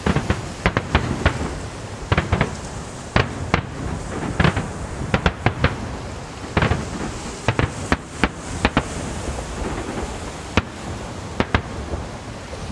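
Fireworks display: aerial shells bursting in sharp, irregular bangs, sometimes several in quick succession, over a steady background rush.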